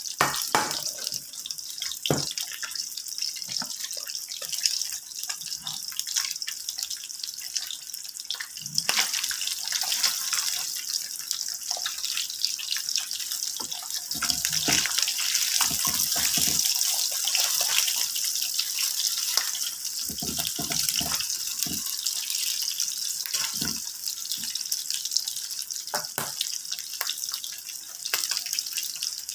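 Slices of Spam frying in hot oil in a frying pan: a steady sizzle with fine crackling and popping. About halfway through, a spatula scrapes and knocks in the pan as the slices are turned.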